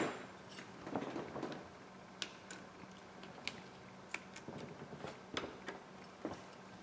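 Scattered small clicks and taps of hand tools and tiny metal screws and brackets being picked up and set down on a rubber work mat during phone disassembly, with a louder knock right at the start and some soft handling rustle about a second in.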